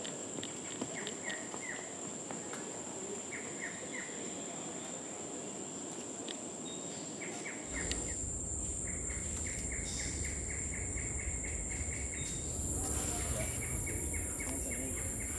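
Tropical rainforest ambience: a steady high-pitched insect drone, with birds giving short chirps, first in little groups of three, then in quick even runs of about four a second. A low rumble joins about eight seconds in.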